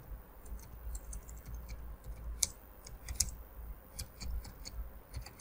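Typing on a computer keyboard: faint key clicks at an uneven rhythm as a line of text is typed.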